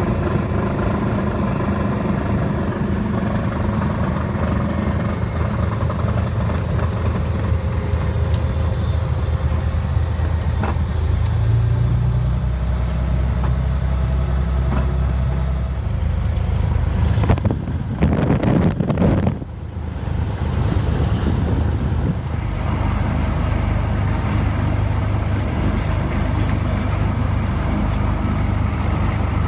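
Cessna 182's piston engine and propeller running steadily at low ground power, heard from inside the cabin as a low drone. Just past the middle a louder rushing noise comes in for a few seconds.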